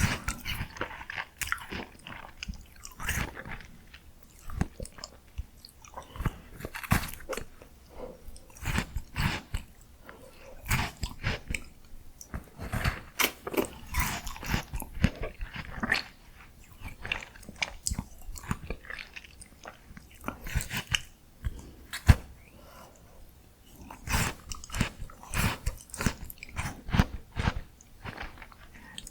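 Close-miked biting and chewing of miniature ice creams, with crisp crunching and wet clicks in irregular clusters separated by short pauses, and one sharp, loud crack about 22 seconds in.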